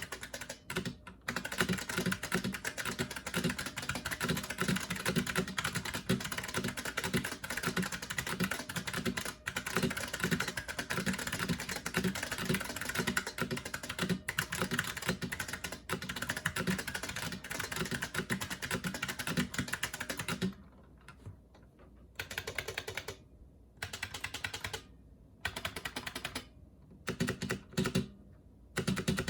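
Clicky typing on a Model F77 buckling-spring keyboard: a fast, continuous stream of keystrokes. About two-thirds of the way through, it breaks into short bursts of keystrokes with pauses between them.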